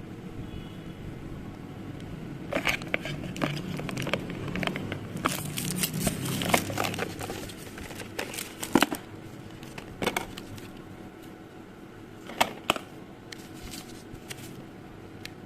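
Handling noise from unboxing a smartphone: plastic packaging crinkling, with irregular sharp clicks and taps, busiest early on and with a couple of louder clicks later.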